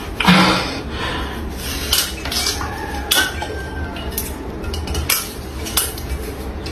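Clinks and knocks of small objects being handled and set down on a wooden tray holding eggs and red peppers: one louder knock just after the start, then scattered lighter taps.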